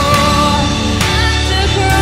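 Live worship band music: a woman sings the lead melody over electric bass and the rest of the band.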